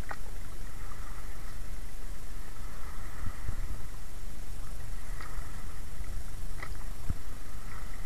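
Steady low wind rumble on the microphone over choppy lake water sloshing around a man wading chest-deep, with a few faint splashes.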